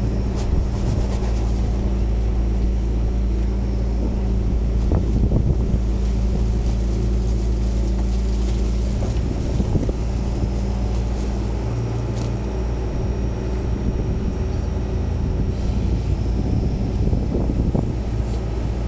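John Deere backhoe loader's diesel engine running steadily, with a few short knocks.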